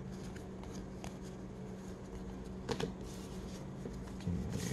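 Baseball cards (2021 Topps Heritage) being handled and flipped through, soft rustles and a few light clicks of card stock, the clearest a little under three seconds in, over a steady low hum.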